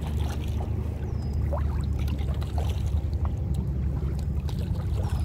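Water trickling and splashing around a kayak as it is paddled, over a steady low rumble.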